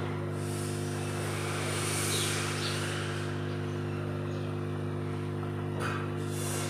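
A steady electrical hum, with a rushing hiss that swells over the first few seconds and comes back briefly near the end.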